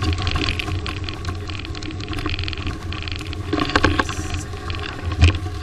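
Riding noise from a bike-mounted action camera as a wide-tyred mountain bike rolls over a snowy trail: a steady low rumble of wind and tyres, with a cluster of sharp knocks and rattles over bumps about three and a half seconds in and a loud thump near the end.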